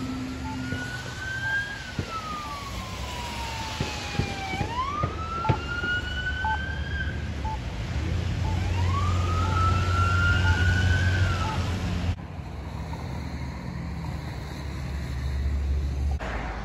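Police car siren on a slow wail, rising and falling in pitch several times over passing traffic, with a few sharp knocks. The siren stops abruptly about twelve seconds in, leaving quieter traffic.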